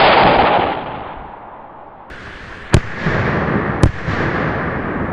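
Dirk Maas Red Dancing Devil salute rockets: a loud rushing whoosh of a rocket climbing away, fading over about a second and a half, then two sharp salute bangs about a second apart, with a steady rushing hiss around and after them.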